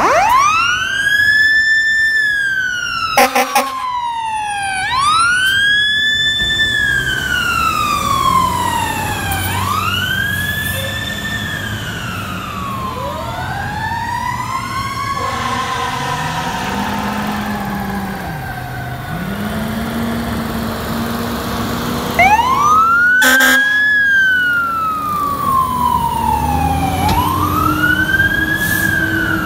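Fire truck sirens wailing in repeated sweeps, each rising quickly and falling over a few seconds, over diesel engines pulling away. Short loud horn blasts sound about three seconds in and again about three quarters of the way through. In the middle a second siren overlaps at a different pitch.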